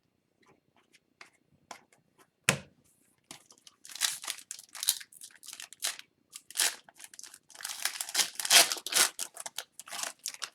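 Hockey card pack wrapper being torn open and crinkled: one sharp click about two and a half seconds in, then stretches of crackly rustling and tearing, loudest near the end.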